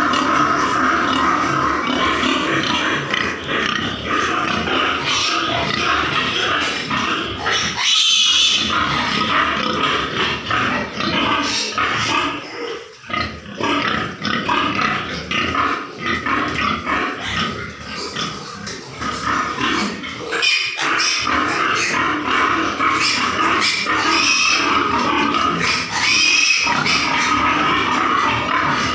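White pigs, a sow and her piglets, grunting and calling in a concrete pen, with many short irregular sounds throughout, over background music.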